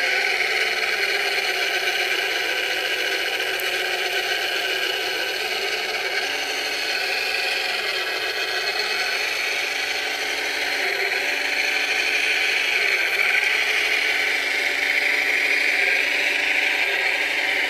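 Scale-model Cat 966 wheel loader's small electric drive motors and gearboxes whirring and rattling as it drives and pushes dirt. A high whine wavers slightly with motor speed.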